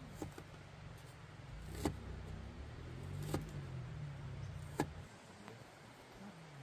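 A low rumble with three sharp clicks about a second and a half apart; the rumble stops about five seconds in.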